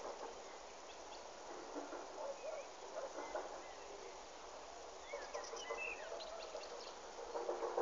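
Birds giving short high chirps, a few scattered and more just past the middle, over steady outdoor background noise. Near the end a rhythmic pulsing sound of a few beats a second begins.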